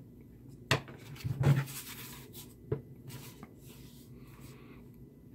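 Handling noise of a small electric kettle being picked up and turned over in the hands: a sharp click under a second in, a louder knock about half a second later, another click near the middle, then soft rubbing.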